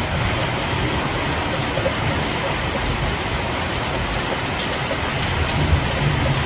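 Steady rain falling as an even hiss, with a low rumble rising near the end.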